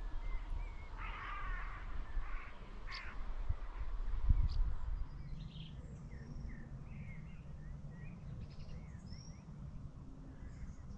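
Birds calling: a few louder calls in the first three seconds, then scattered short, softer chirps over a low steady rumble.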